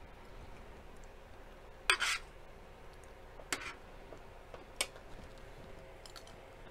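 Metal spoon and fork clicking against a plate and metal tray as food is scooped: a few sharp clicks, a double one about two seconds in and single ones about a second and a half apart after it.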